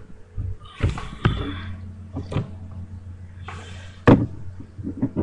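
A series of knocks and thuds as a child's arm swings and bumps against the desk and webcam, the loudest about four seconds in, with rustling between the knocks over a low steady hum.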